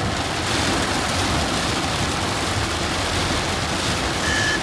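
Heavy rain hitting a car's windshield, heard from inside the car as a steady, dense hiss. An electronic beep starts near the end.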